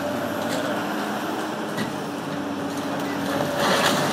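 Komatsu hydraulic excavator's engine running steadily while its demolition crusher breaks up a concrete wall. There are a few sharp cracks, and louder crunching of concrete with falling debris near the end.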